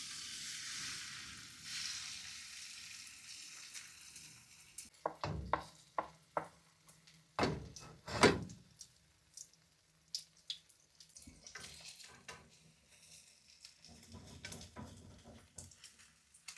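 Food hissing as it goes into a hot frying pan, the sizzle fading over the first few seconds, followed by a string of sharp knocks of utensils and cookware, the loudest about eight seconds in.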